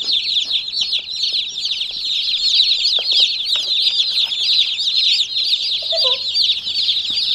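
A brood of Cornish Cross meat chicks peeping continuously: dozens of high, short chirps overlapping into one unbroken chorus.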